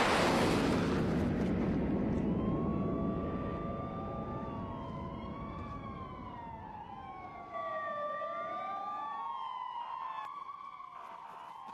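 A loud rushing whoosh that slowly fades, then from about two seconds in several police sirens wailing over one another, their pitches rising and falling out of step.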